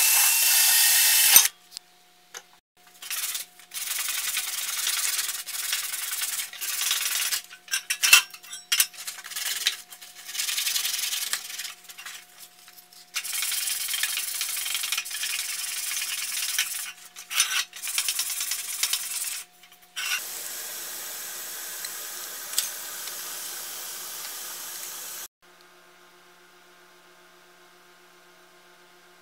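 A cordless drill spinning a wire brush against a steel plate stops about a second and a half in. Then comes hand sanding: sandpaper rubbed in short back-and-forth strokes on a small painted part, in bursts with pauses. Near the end there is a few seconds of steady hiss.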